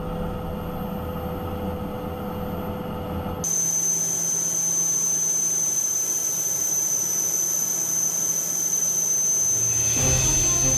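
Aircraft turbine engine running: a steady hum, then an abrupt cut about three and a half seconds in to louder rushing noise with a steady high-pitched whistle.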